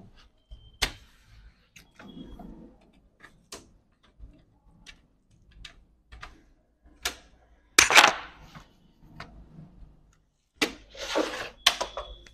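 Scattered clicks and knocks of a Lenovo laptop's plastic case being handled and turned over. The loudest knock comes a little after the middle, and a short scraping noise follows near the end.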